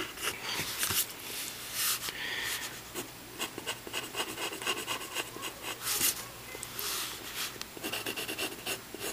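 Mechanical pencil scratching on drawing paper in a run of quick, irregular strokes as a sketch is drawn.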